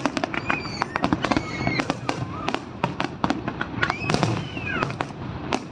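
Fireworks display with shells bursting in a dense, irregular barrage of sharp bangs and crackles, several per second.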